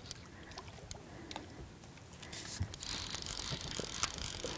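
Fly reel's ratchet drag clicking as a hooked fish pulls line, growing louder and denser about halfway through.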